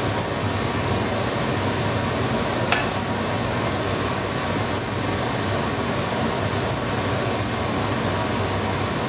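Steady fan-like noise with a low hum underneath, and one short click about three seconds in.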